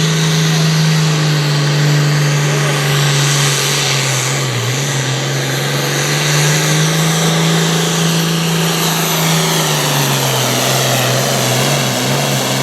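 International Harvester 1066 Pro Farm pulling tractor's 466 diesel wide open, hauling the sled down the track. It is a loud, steady, high engine note that drops slightly in pitch about ten seconds in as the engine takes the load.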